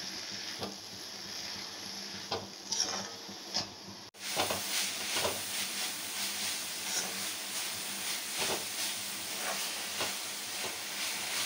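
Banana-flower florets sizzling in oil in a heavy-bottomed iron kadai, sautéing until they wilt, while a steel spoon stirs and scrapes them around the pan in irregular strokes. After a short break about four seconds in, the sizzle is louder.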